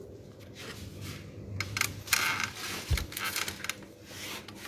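Light, scattered clatters and scrapes as an aluminium baking tray is handled and slid into a stainless steel deck oven, with one dull low thump about three seconds in.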